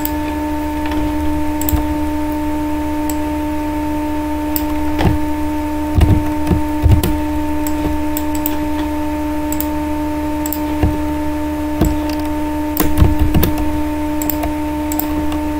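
Steady electrical hum with several fixed tones, with scattered sharp clicks of a computer mouse and keyboard.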